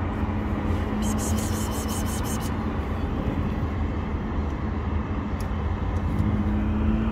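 A steady low mechanical drone with a constant hum, as of an engine running, with a few faint clicks about a second in.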